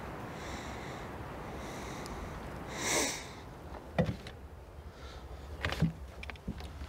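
A person sniffing sharply through the nose about three seconds in, followed by a few sharp clicks and knocks from hands working in a car trunk.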